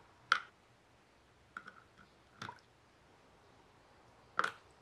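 Rusty metal parts of a chamfer plane clicking and tapping against a small plastic container as they are put into it: a handful of sharp clicks, the loudest about a third of a second in and near the end.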